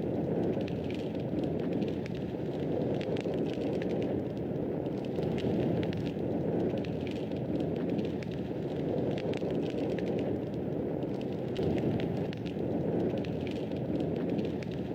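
Wood fire burning with a steady low rumble and many small, irregular crackles and pops.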